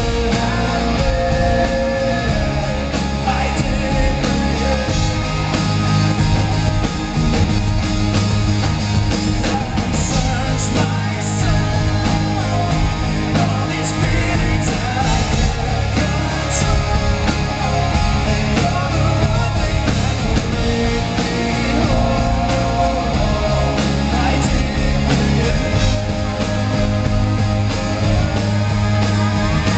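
Live rock band playing loudly, with a male lead vocalist singing over electric guitar and a heavy bass line, heard from within the concert audience.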